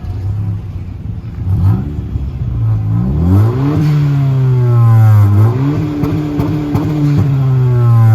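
2021 Honda Civic Sport's four-cylinder engine revving through an exhaust with the rear muffler deleted and the resonator still in. It idles briefly, then is revved up several times and held at higher speed, drops back about halfway through and rises again.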